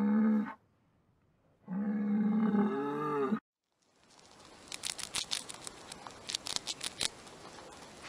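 Highland cattle mooing: a long low moo ends just after the start, and a second one begins about two seconds in and is cut off after under two seconds. From about four seconds in, a hamster gnaws at a dried treat, making faint rustling and quick crisp clicks.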